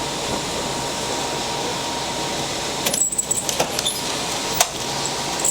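Steady background noise, then about three seconds in a couple of seconds of light metallic jingling and clicking.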